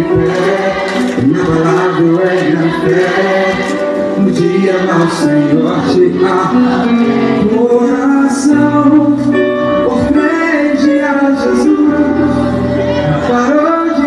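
Live Brazilian gospel music from a concert sound system: a band plays with sung vocals, loud and continuous.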